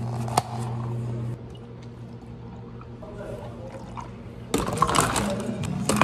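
A plastic lid snaps onto a plastic cup with a sharp click just under half a second in. From a little past halfway, ice cubes clatter and rattle densely as they are scooped with a metal ice scoop into plastic cups of milk.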